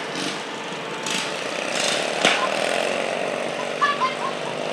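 Stock garden tractor engine running hard under full load, dragging a weight-transfer pulling sled.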